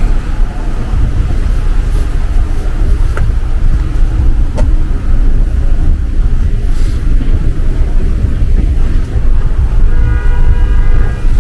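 Loud, steady low rumble of city street traffic, with a horn-like tone sounding near the end.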